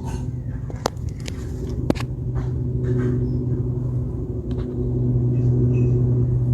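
Steady low machine hum that grows a little louder about five seconds in, with two sharp clicks about one and two seconds in.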